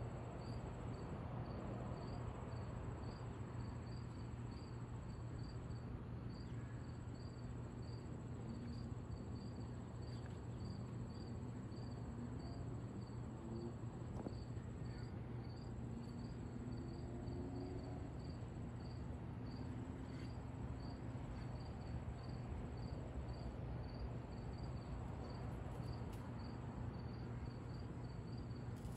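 Crickets chirping steadily, about two chirps a second, over a continuous higher insect trill that stops briefly now and then, with a low steady hum beneath.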